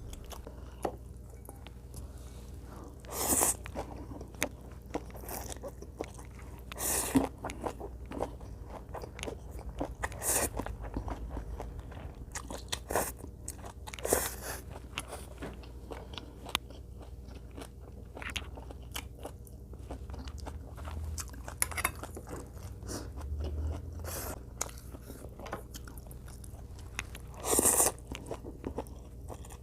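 Close-miked chewing and crunching of food, with many small wet mouth clicks and a handful of louder crunchy bites spread through.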